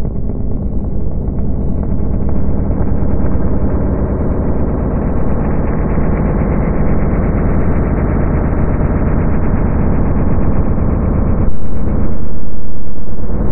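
Experimental electronic drone-noise music: a dense, low, rumbling drone with a fast fluttering pulse. About eleven and a half seconds in it turns abruptly louder, with a brief dip soon after.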